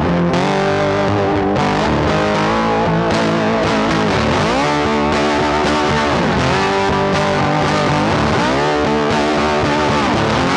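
Background music with a sustained lead line whose notes bend down and back up several times.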